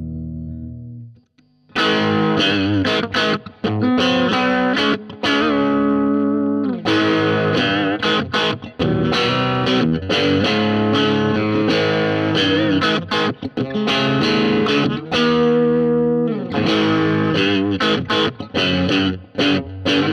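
Fender '61 Stratocaster electric guitar played through an overdriven amp. A held chord dies away, and after a brief gap comes a distorted run of picked single notes and chords with a few string bends.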